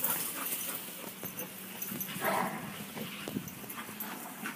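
Two dogs playing, with scattered faint clicks and rustles and one short dog sound about two seconds in.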